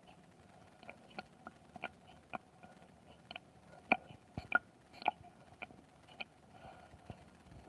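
Faint, irregular small pops and clicks from a close-miked belly: the quiet gurgle-pops of a stomach before it rumbles, a few a second, loudest near the middle.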